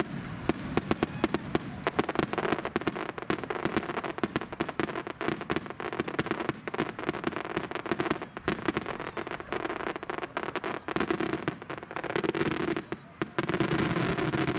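Star mine fireworks barrage: aerial shells bursting one after another in rapid succession, a continuous stream of bangs and crackling with no break.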